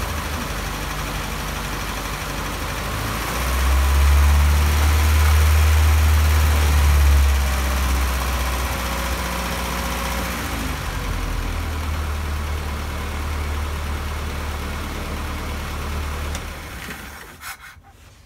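The slipper launch's red inboard petrol engine idling steadily, with a deep low hum. It runs louder for a few seconds from about three and a half seconds in, and fades out near the end.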